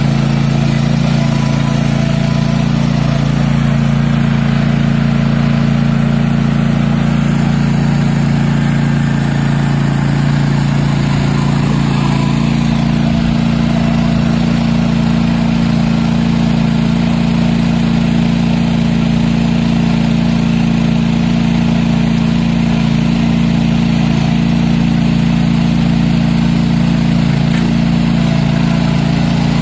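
Cub Cadet ZT1 Ultima zero-turn mower's engine running steadily and loud, its pitch shifting slightly about twelve seconds in.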